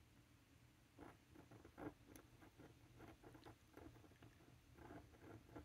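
Faint scratching of a metal pen nib on a paper card as a word is written in cursive: short, irregular strokes, one after another.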